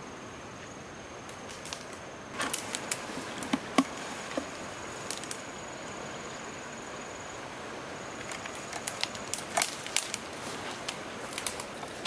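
A steady, high insect drone, like a cricket, with irregular sharp clicks and knocks scattered over it in two clusters, a few seconds in and again near the end.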